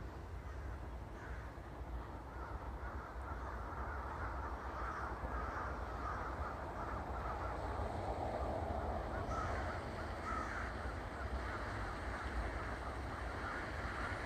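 A large flock of crows perched in the treetops, cawing constantly with many calls overlapping into a din that swells after about four seconds.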